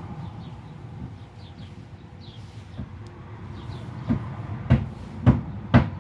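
Four sharp knocks, each about half a second after the last, near the end, over a steady low rumble with faint high bird chirps.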